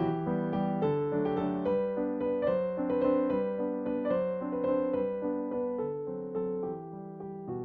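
Background music: a piano tune of struck notes changing in steady succession.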